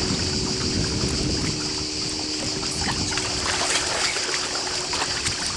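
Seaside outdoor ambience: a steady high hiss over wind and water noise, with a low steady hum that fades out about three seconds in.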